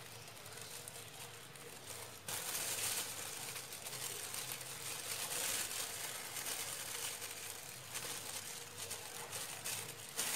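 Thin plastic bag crinkling and rustling as hands work a piece of banana inside it, louder from about two seconds in.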